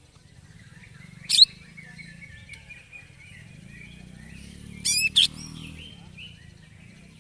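Cucak ijo (green leafbird) singing in its cage, worked up: a run of soft twittering broken by loud, sharp calls, one about a second and a half in and a double one about five seconds in.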